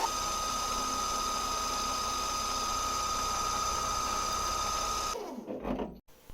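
Lathe spindle motor spinning up, running at a steady pitch for about five seconds, then winding down to a stop, with a spot drill turning in the chuck.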